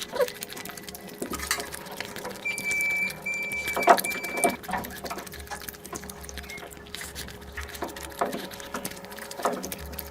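Close-miked wet chewing and mouth smacking of someone eating curry and rice, in irregular clicks and squelches. A thin high steady tone sounds for about two seconds near the middle, with short breaks.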